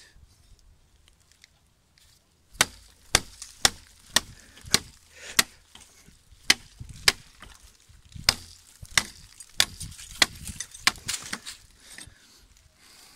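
Lovaglio and Molletta RS7 chopping knife striking dead, dry oak: a quick run of about fifteen sharp chops, roughly two a second, starting about two and a half seconds in.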